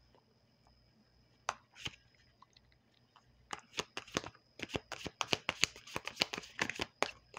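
A deck of tarot cards being shuffled by hand: a couple of soft flicks, then from about halfway through a quick, steady run of card-edge snaps, as cards are shuffled to draw the outcome cards.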